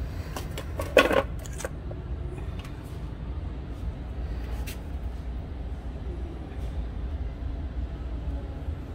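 Small wooden box with an embossed metal top set down on a wicker shelf: a short clatter of knocks about a second in, then a few faint ticks, over a steady low background hum.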